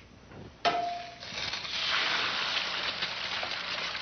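An egg is broken into a hot cast-iron skillet with a sharp crack and a brief ring, then sizzles steadily in scorching butter, the hiss building over about a second.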